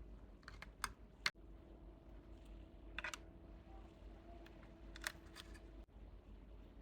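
Hands handling small toys and packaging: a few sharp clicks and taps, with a short cluster of clicks about three seconds in.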